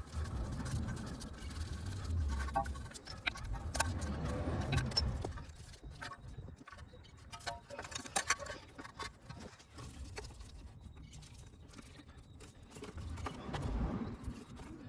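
Scattered light clicks, taps and rattles of hand work as a new ABS wheel-speed sensor and its wiring are fitted at a car's wheel, with low rumbling handling noise during the first few seconds and again near the end.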